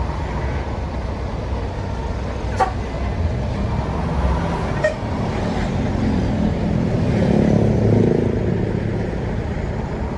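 Road traffic noise with a steady low engine rumble. A heavy vehicle passes, getting louder to a peak about eight seconds in. Two short sharp clicks come earlier.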